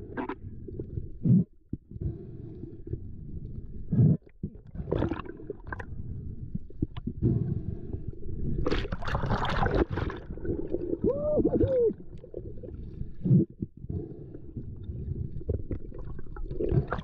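Muffled underwater rumble of water moving around a camera's waterproof housing, with a few dull knocks and a louder rush of bubbling about nine seconds in.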